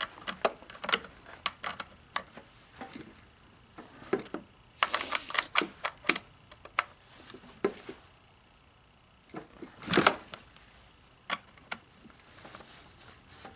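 Irregular small clicks and metallic taps of hand tools working on a chainsaw's bar and chain, with a short scraping rasp about five seconds in and another about ten seconds in.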